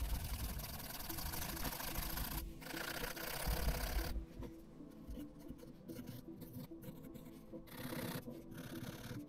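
Pen scribbling on notebook paper: quick back-and-forth hatching strokes, a dry scratching. Strongest over the first four seconds with a short break about two and a half seconds in, then fainter and more broken strokes.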